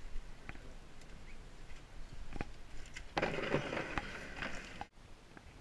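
Small boat being paddled through a marsh channel: scattered light knocks of paddle and gear against the hull, and a stretch of rustling and water noise a little past halfway that ends abruptly.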